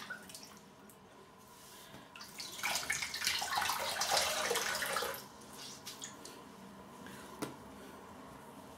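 Water splashing in a bathroom sink for about three seconds as a face is wetted with water, followed by a single short click near the end.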